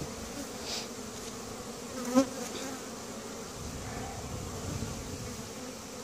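Steady hum of many honey bees buzzing around an open, crowded hive. A short, louder sound breaks in briefly about two seconds in.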